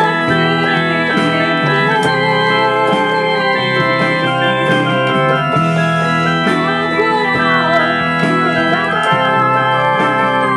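Electronic keyboard playing held chords with a melody over them, at a steady loudness throughout.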